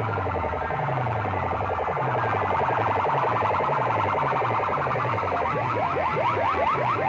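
Electronic alarm-like competition track blasting through a DJ sound system's massed horn loudspeakers and bass bins: a falling bass sweep about twice a second under rapid, repeating rising chirps.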